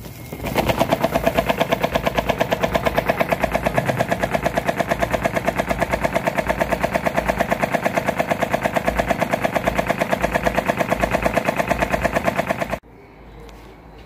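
Broken Britânia electric fan switched on and running with a loud, fast, even rattle. It starts about half a second in and cuts off suddenly near the end.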